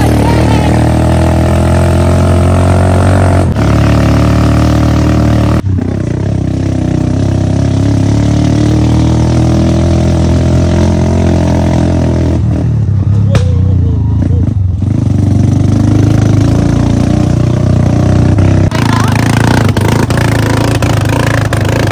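Small motorcycle engine running under way, its pitch rising and falling with the throttle. The sound breaks off and picks up again abruptly three times.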